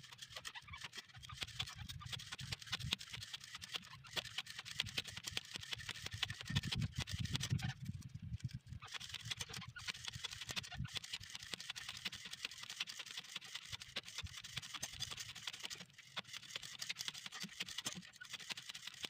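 Nylon fishing line running off a plastic hand spool, making a continuous fast ticking crackle, over a low rumble of sea and wind. The crackle thins briefly twice.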